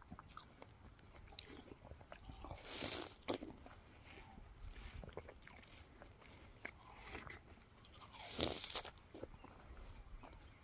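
A person biting into and chewing slices of ripe watermelon: faint, wet crunching, with two louder crunches about three seconds in and about eight and a half seconds in.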